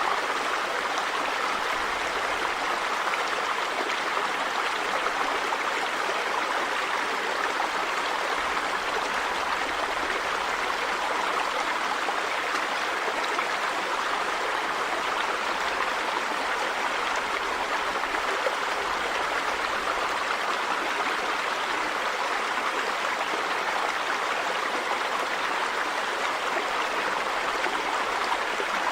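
River water running over rocks: a steady rushing and babbling flow, even throughout.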